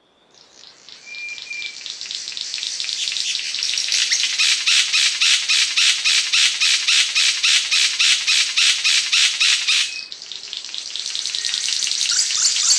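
Cendrawasih panji bird calling a fast, harsh chattering series that swells over the first few seconds. It then runs on in even pulses of about three a second, breaks off briefly about ten seconds in, and starts again near the end.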